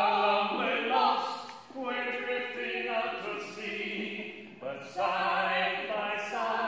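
Choir singing a series of long held notes in a show tune.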